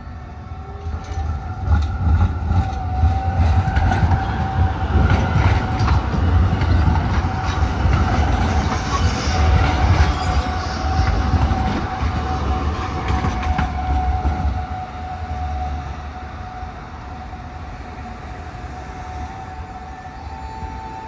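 A train passing: a loud low rumble that builds about two seconds in and eases off after about fourteen seconds, with a steady high tone and scattered clicks running through it.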